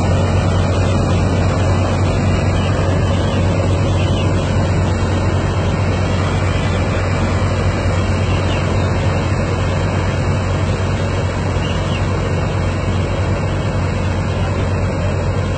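Sonalika tractor-powered mini combine harvester running steadily under load while harvesting: a loud, constant engine drone with dense machinery noise over it.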